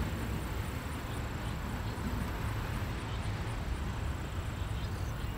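Steady outdoor background noise, mostly a low rumble like wind on the microphone or distant traffic, with a faint high ticking repeating about three times a second.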